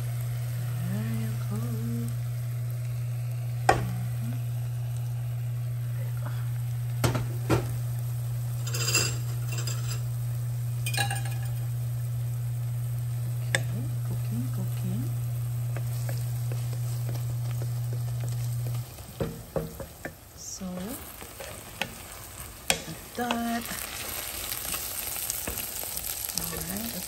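Beaten eggs frying and sizzling in an All-Clad skillet over spinach and dried shrimp, stirred with a wooden spatula that now and then clicks and scrapes against the pan. A steady low hum runs underneath and cuts off suddenly about nineteen seconds in.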